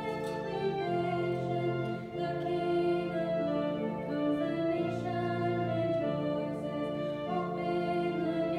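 Entrance hymn of the Mass: held keyboard chords changing every second or two, with singing.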